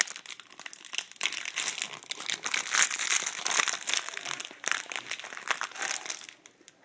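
Plastic wrapper of an individually wrapped Sara Lee snack cake crinkling as it is handled and opened, an irregular run of crackles that dies down near the end.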